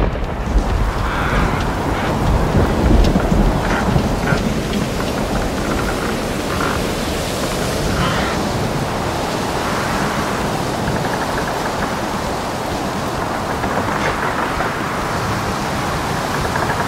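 Thunderstorm sound effect: steady heavy rain hiss, with a deep rumble of thunder that is strongest in the first few seconds and then settles into rain.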